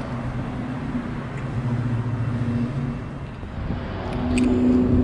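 Road traffic: a car's engine running as it drives by on the road alongside, growing louder about four seconds in as it comes closer.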